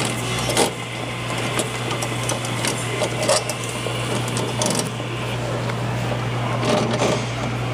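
Electric motor of a coin-operated kiddie ride running with a steady low hum as the ride rocks, with occasional clicks and knocks from the mechanism.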